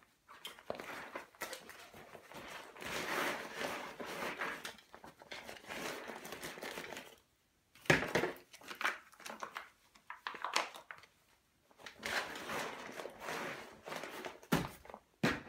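Rustling and crinkling of gear being shoved by hand into a lightweight fabric backpack. It comes in bursts with short pauses, with a sharper knock about eight seconds in.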